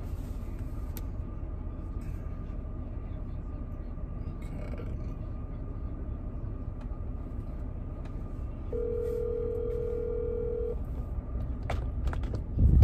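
A telephone ringback tone: a single steady ring about two seconds long, over a steady low rumble, with a loud thump near the end.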